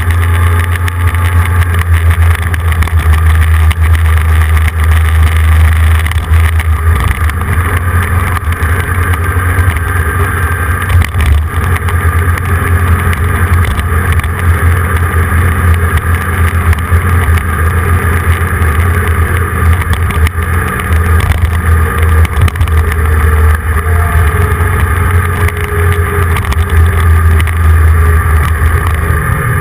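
Vehicle travelling along a road at steady speed: a continuous low engine drone with road and wind noise on the microphone.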